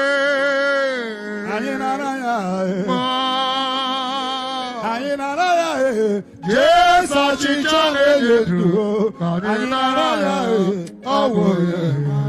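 A voice chanting a slow, drawn-out devotional melody with long wavering held notes, over a steady sustained backing tone.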